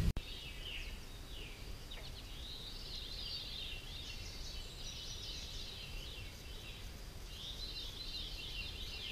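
Woodland birds singing: quick chirps and short falling notes, repeated in busy runs, over a steady low rumble.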